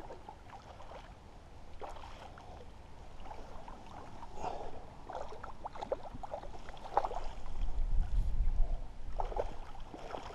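Hooked trout splashing and thrashing at the water's surface as it is played in toward the landing net: a run of irregular splashes and water slaps, growing louder toward the end, with a low rumble a little before the end.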